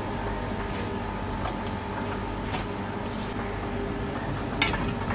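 Light clicks and scrapes of a plastic spoon at a salt jar and a spatula stirring chopped bottle gourd in a metal kadhai, with a sharper knock of the spatula against the pan near the end, over a steady background hum.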